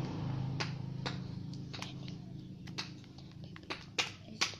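A low vehicle hum fading away, with sharp single taps that come more often near the end, about two or three a second.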